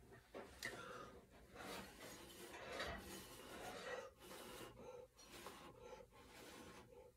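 Faint, irregular puffs of breath as a person blows by mouth across wet acrylic paint on a canvas, pushing it outward in a Dutch pour.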